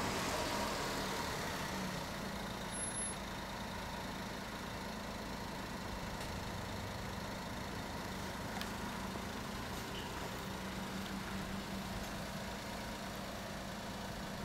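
A motor vehicle engine idling steadily.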